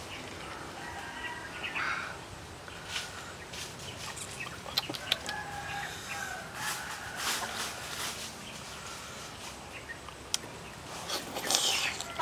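Chopsticks and a metal spoon clicking and scraping against a metal tray as a steamed mackerel is picked apart, with a loud wet eating sound near the end as a piece of fish is bitten into. Birds call in the background.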